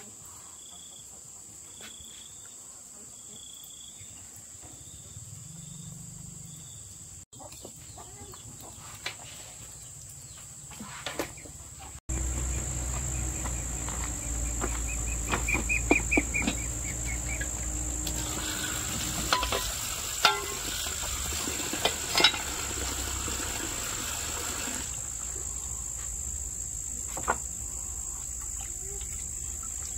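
Insects drone steadily on one high note. After a cut about twelve seconds in, a low rumble comes in with scattered knocks and clatter, and a hiss lasts for several seconds in the middle of that stretch.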